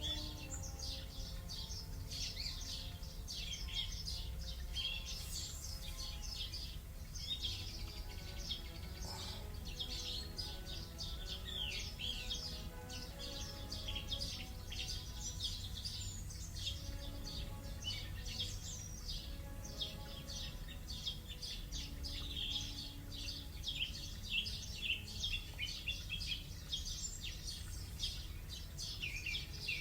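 A recording of a morning bird chorus played back through an Amazon Echo smart speaker: many birds chirping and trilling together without a break, over a faint steady low hum.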